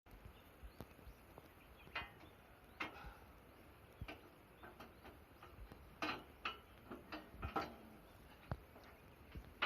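Scattered, irregular light clicks and taps from hand tools being handled during work on a machine's hydraulic pipe, over a quiet background.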